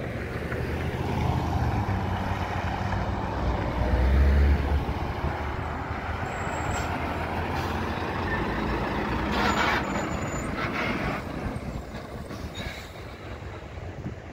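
Diesel tractor-trailer driving past close by, its engine drone loudest about four seconds in, then fading as it pulls away. A few short hisses around the middle, typical of the truck's air brakes.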